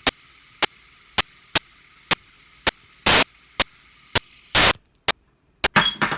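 Steady static hiss broken by sharp clicks about twice a second, two of them longer and very loud. The hiss cuts out suddenly near the end, followed by a short, ragged burst of noise.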